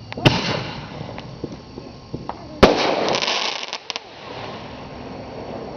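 Consumer fireworks artillery shells: a sharp bang about a quarter second in, then a louder bang about two and a half seconds in, followed by about a second of crackling.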